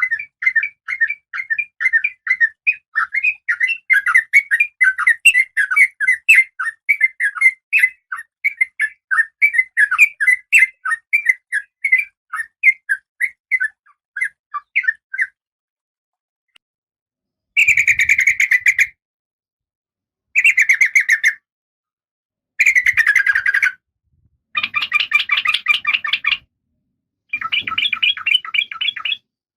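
A female oriental magpie-robin (kacer) calls, as a female in breeding condition calls to a male. First comes a long run of quick, short chirps, several a second. After a pause of about two seconds come five harsh, buzzing calls, each about a second long.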